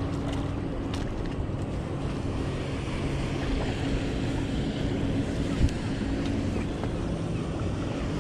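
A motorboat engine drones steadily, with wind on the microphone and water washing against rocks; a single short knock about five and a half seconds in.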